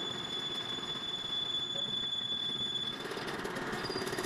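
Steady workshop machine noise with a thin high whine, which jumps higher in pitch about three seconds in.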